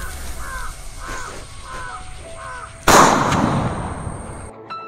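A bird cawing about five times at an even pace, then about three seconds in a gundu firecracker taped to a mobile phone explodes with one loud bang that dies away over about a second and a half.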